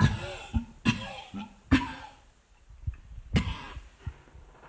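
A person coughing and gagging: four short, harsh heaves, the last after a longer pause, from someone who says he is probably going to be sick soon.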